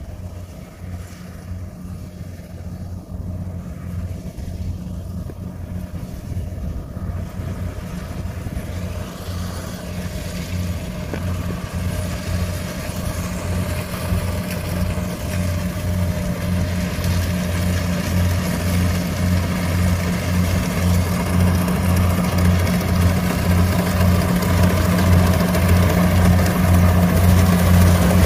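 Tracked rice combine harvester's engine running steadily with a low pulsing hum as it cuts, growing steadily louder as the machine comes closer.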